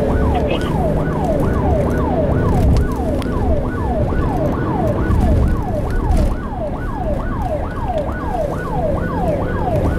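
Police car siren on a fast yelp, its pitch sweeping about two to three times a second without a break, heard from inside the patrol car's cabin over the low hum of the car on the move.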